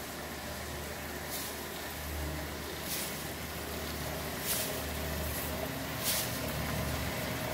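Belt-driven roller machine running: a steady low motor hum under the turning rollers and pulleys, with a short hiss repeating about every one and a half seconds.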